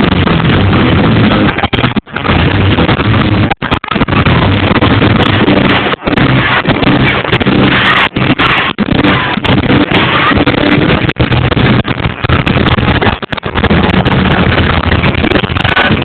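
Fireworks display bursting almost without pause, recorded very loud, with the sound dropping out briefly several times.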